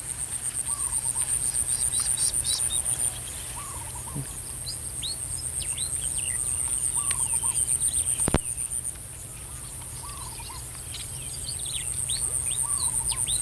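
Swamp ambience: an insect trilling in a fast, even pulse that swells and fades in bouts, with a bird repeating a short call about every one and a half to two seconds and other small birds chirping. A single sharp click about eight seconds in.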